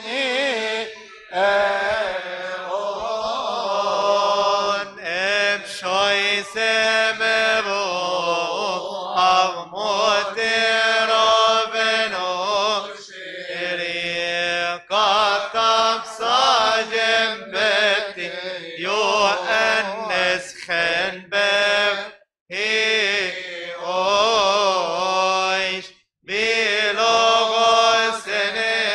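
A Coptic Orthodox hymn for the Nativity, sung in Coptic by a male voice in long melismatic phrases with wavering, ornamented pitch and brief breaths between phrases, over a steady low hum.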